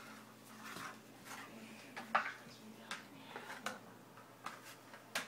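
A Havanese puppy playing on a hardwood floor with a cardboard toilet-paper tube: a handful of light, sharp taps and knocks, roughly one a second.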